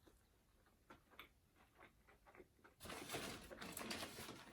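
Eating sounds: a few faint mouth clicks, then from about three seconds in nearly two seconds of chewing.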